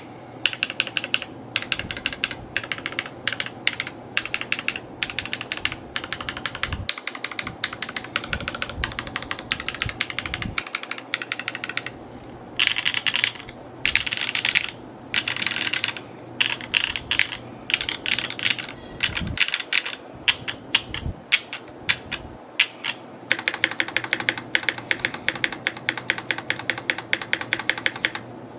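Fast typing on an S&R Magnus175 mechanical keyboard: a quick, continuous patter of keystroke clacks, running into denser, unbroken spells of typing about halfway through and again near the end.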